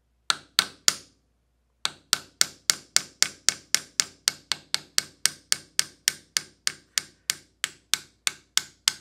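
Hammer tapping a plastic punch to drift a stuck front sight sideways out of a pistol slide's dovetail: three quick taps, a short pause, then a steady run of about three to four taps a second.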